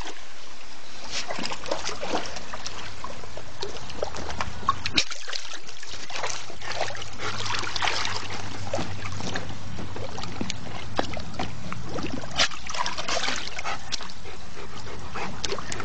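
Water splashing and sloshing in a plastic kiddie pool as a large dog paws and dunks its head to fish a rock off the bottom, with many short splashes throughout.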